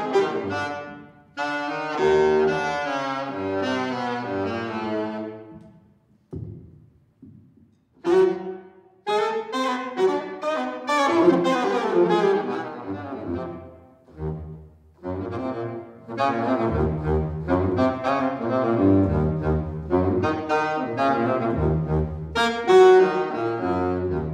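Saxophone playing a melodic jazz line of separate notes, breaking off for about two seconds around six seconds in, then playing on.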